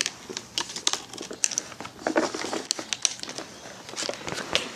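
Handling noise close to the microphone: scattered irregular clicks, taps and rustles as plastic doll toys and the phone are moved about.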